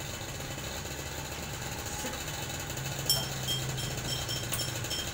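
A steady, low mechanical hum, joined about three seconds in by a fast, even ticking of short high-pitched clicks, about three or four a second.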